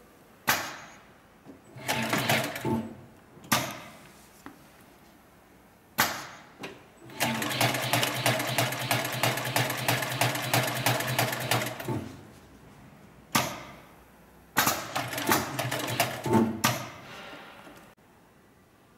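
Hightex 204-370 heavy-duty twin-needle sewing machine stitching leather upholstery in short runs of even, rapid knocking, the longest about four seconds in the middle. Single sharp clacks fall between the runs.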